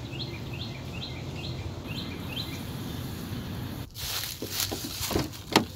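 A bird repeats a short high two-part call about twice a second over a steady low rumble of outdoor background noise. About four seconds in this gives way to footsteps crunching through dry fallen leaves, with one sharp louder crunch near the end.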